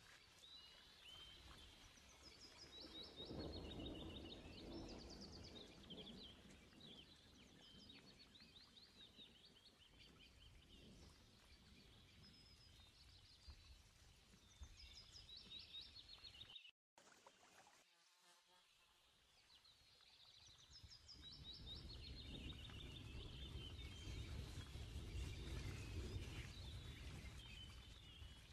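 Faint birdsong: small birds twittering in quick, high, repeated trills over a low background rumble that swells in the second half.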